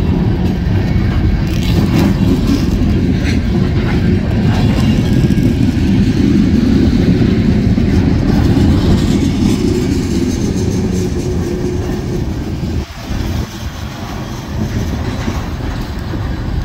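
CN freight cars rolling past on the rails: a steady, loud rumble of wheels and car bodies with occasional clicks. The sound drops abruptly about thirteen seconds in and carries on quieter.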